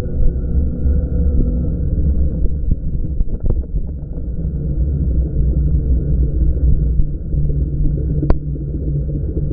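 Steady, low, muffled rumble of riding a Super73 S1 electric bike, picked up by an action camera. There are a few faint ticks about three and a half seconds in and a single sharp click about eight seconds in.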